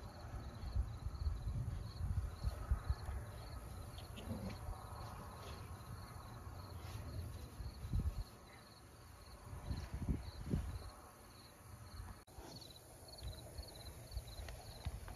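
An insect chirping steadily, about three short high chirps a second, over irregular low rumbles.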